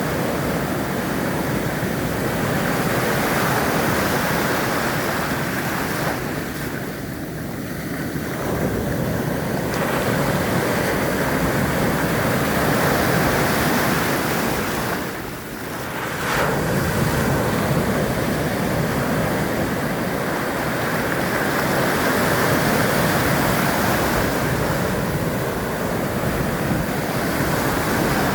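Ocean surf washing onto a shore: a continuous rush of breaking waves that eases briefly about 7 seconds in and again about 15 seconds in before building back up.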